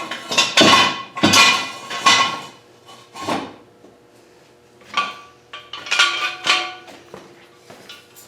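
Steel jack stands being set down and positioned under the car: a run of sharp metal clanks, each ringing briefly, several in the first three seconds and a few more after a pause.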